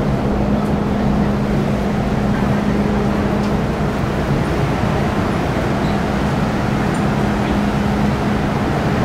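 Metro-Cammell M-Train EMU standing at the platform with its equipment running: a steady low hum with a low tone that drops out for a few seconds midway and then returns.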